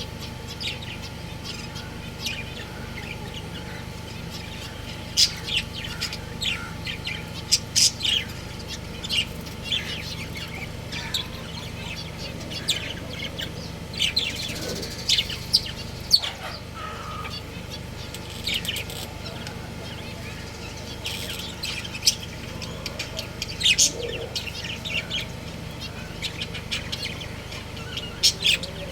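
Budgerigars chirping: many short, sharp chirps scattered throughout, over a steady low hum.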